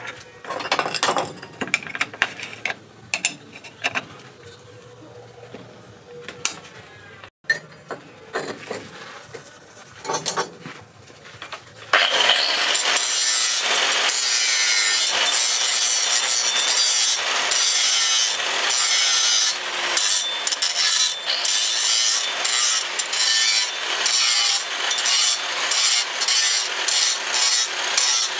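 Scattered knocks and clinks of handling for about twelve seconds, then a handheld angle grinder starts abruptly and grinds the bevel of a leaf-spring steel axe head with an abrasive disc, a loud, steady, hissing grind.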